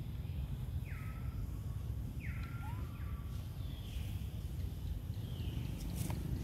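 Repeated high, thin whistled animal calls, about five in a row, each sliding down in pitch and then held briefly, over a steady low rumble of outdoor noise. A single sharp click sounds near the end.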